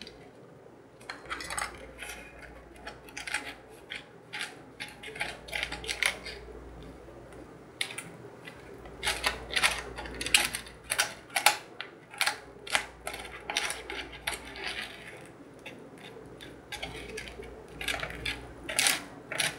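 Small plastic spoon and fingers scraping and tapping in a plastic candy-kit tray while stirring a stiff candy mix, giving quick, irregular clicks that come thickest about halfway through.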